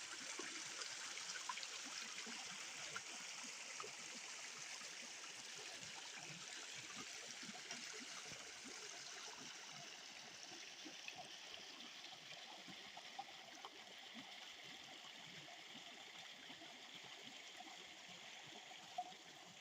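Water of a small waterfall and stream rushing and splashing, a steady faint hiss that fades a little toward the end.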